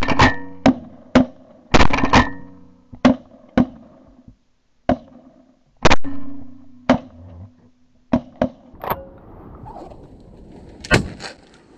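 A volley of shotgun blasts from several hunters firing at ducks, about fifteen shots in quick irregular succession, the loudest at the start and around six seconds in, with fainter shots near the end.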